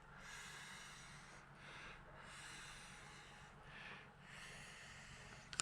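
Faint breathing close to the microphone, a slow run of soft breaths over a low steady hum.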